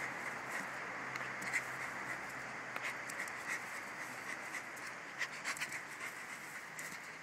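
A dog panting, with scattered small clicks and rustles.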